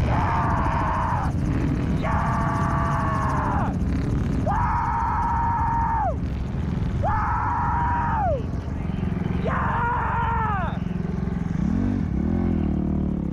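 Dirt bike engines revving hard in five repeated bursts. Each burst rises, holds for about a second and a half, then drops off, over a steady low engine rumble. Near the end a lower engine note climbs as a bike pulls up the slope.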